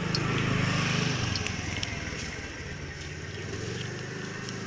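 A motor vehicle engine running, louder for the first second and a half and then settling to a lower steady hum, with a few light clicks.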